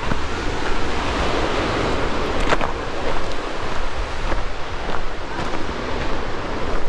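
Wind gusting over the microphone: a loud, steady rushing hiss with low buffeting, broken by a few sharp clicks.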